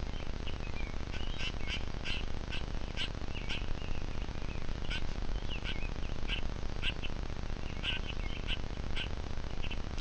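Birds calling: short, sharp call notes repeated irregularly about once or twice a second, with a few thin wavering notes between them.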